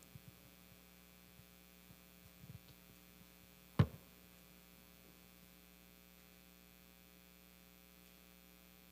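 Steady electrical mains hum on the sound feed, with a few faint knocks and one sharp knock a little under four seconds in, as a microphone is handled at the lectern.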